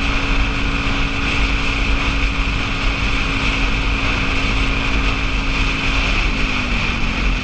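Motorcycle engine running steadily at cruising speed, with heavy wind buffeting on the microphone; the engine note drops slightly about six seconds in.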